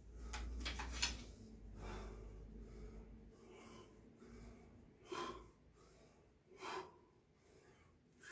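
A man's short, sharp breaths, twice about a second and a half apart. Before them comes rustling and a low rumble close to the microphone.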